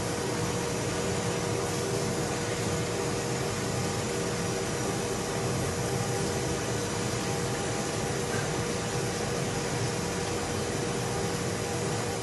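Steady rushing noise of a large stainless-steel noodle boiler at a rolling boil over its burner, with a faint steady hum running through it.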